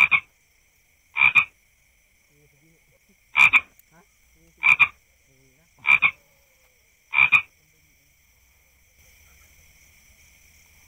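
Cane toad giving a run of six short, doubled croaks, about one every second and a half, that stop about seven and a half seconds in. A faint steady high-pitched drone runs underneath.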